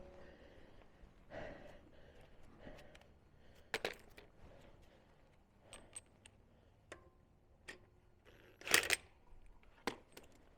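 Scattered light metallic clinks and knocks of hand work at a car wheel hub as a wheel and its lug nuts are handled, the loudest clank about nine seconds in.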